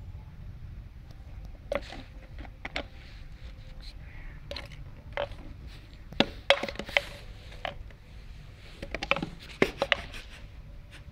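Empty plastic water bottle being knocked about on plastic seats and a tiled floor: scattered sharp, hollow knocks and clatters, the loudest clusters about six seconds in and again near the end.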